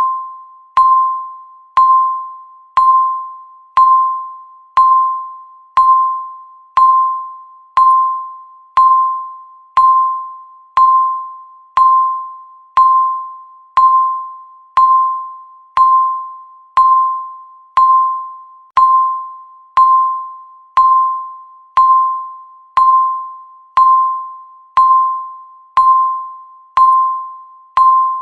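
Electronic countdown-timer beep, one clear tone struck once every second with a sharp start and a quick fade, ticking off the seconds.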